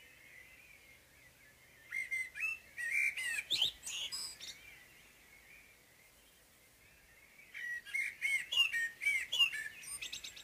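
Common blackbird's morning song: two phrases of fluty warbling, each breaking into quick higher twittering, about three seconds apart, over faint background birdsong.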